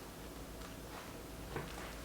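Quiet room tone with a faint click about one and a half seconds in.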